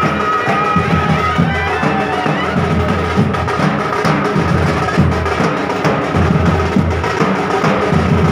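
Nashik-style dhol drum band playing a fast, steady beat, with a high held melody tone over the drumming.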